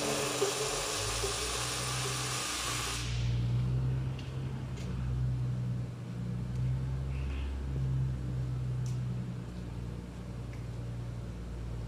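Electric welding arc crackling and hissing while a weld is run on a steel frame, stopping abruptly about three seconds in. After that only a low steady hum remains, with a few faint ticks.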